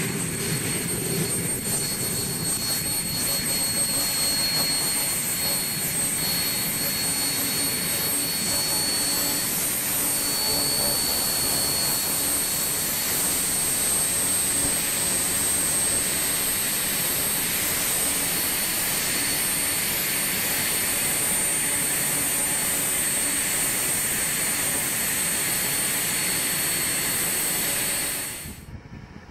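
Twin General Electric J85 turbojets of a Cessna A-37 Dragonfly running as the jet taxis: a loud, steady, high-pitched whine over the rush of the engines. The sound cuts off abruptly near the end.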